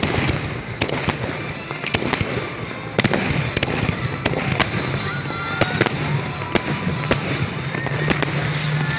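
Fireworks display: many sharp bangs from bursting aerial shells at irregular intervals, over a continuous crackle.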